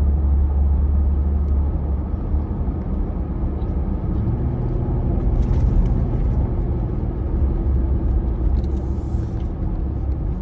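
Steady low engine and tyre rumble of a car driving along, heard from inside the cabin.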